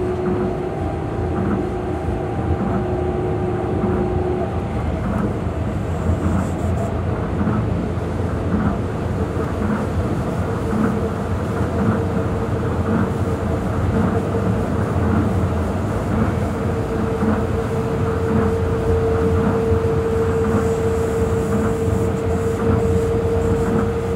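Tokyo Monorail 2000 series train running at speed, heard from inside the car: a steady rumble on the guideway with a steady electric whine. One whine fades out after a few seconds, and a stronger one comes in from about ten seconds in.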